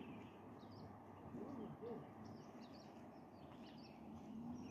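Faint, scattered bird chirps over a quiet background hiss.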